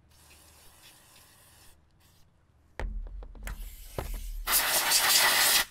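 A few sharp clicks and knocks of metal parts being handled. Then, over the last second or so, a loud steady spraying hiss that stops abruptly, as a transmission part is cleaned.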